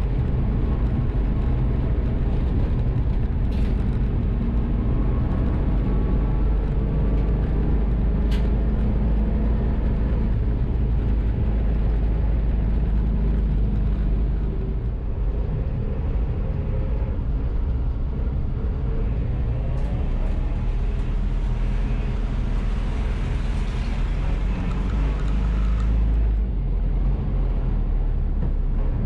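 A vehicle being driven: steady engine and road rumble, with two short clicks in the first several seconds.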